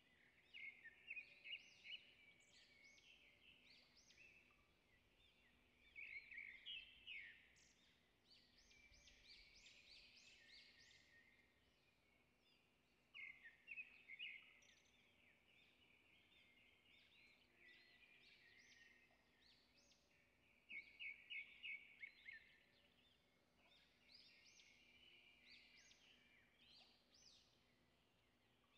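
Faint birdsong: groups of quick high chirps and trills that come back every few seconds.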